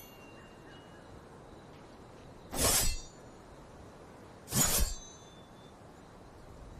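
Katana sword sound effect, two swishes each about half a second long with a faint metallic ring, about two seconds apart.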